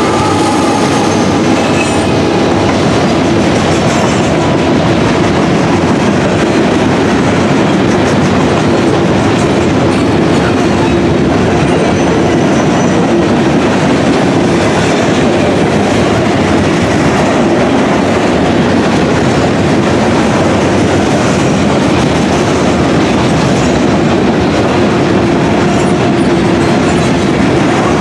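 Freight train of gondola cars rolling past close by: a steady, loud rumble of steel wheels on the rails, with clickety-clack over the rail joints and a steady hum beneath.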